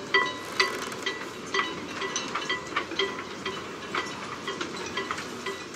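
Regular ticking with a short ringing tone on each tick, about two ticks a second, over a steady hiss.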